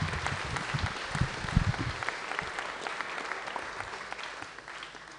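Audience applauding, a dense patter of many people clapping that gradually dies away near the end.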